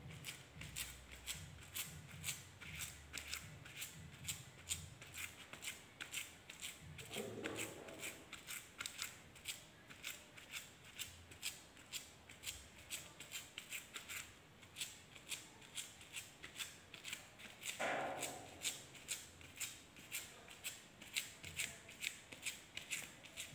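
Foam sponge dabbing paint onto a wall papered with calendar-paper stencils: a quick, even series of soft, crisp pats, about three a second.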